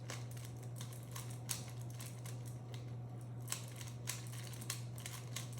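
A 3x3 Rubik's cube being scrambled by hand: quick, irregular plastic clicks as its layers are turned, over a steady low hum.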